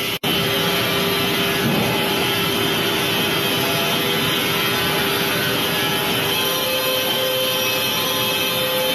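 Industrial band sawmill machinery running steadily, a continuous whir with a faint held hum. The sound drops out briefly and abruptly near the start, then resumes.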